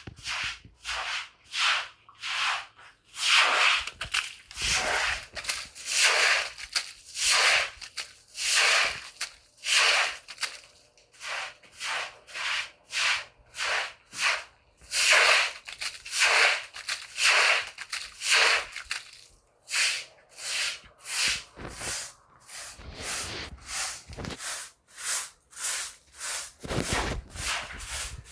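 Hand scrubbing: a cloth rubbed over a rough surface in repeated strokes, about one or two a second.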